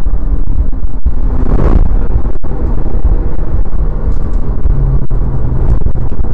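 Mitsubishi Lancer Evolution IX MR's turbocharged four-cylinder engine running hard under load, heard from inside the cabin together with road noise, loud with a low rumble.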